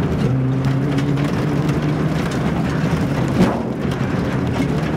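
Suzuki Swift GTi Mk1's 1.3-litre four-cylinder engine running hard, heard from inside the cabin with road and tyre noise. It dips in pitch just after the start, then runs steadily. A single sharp knock comes about three and a half seconds in.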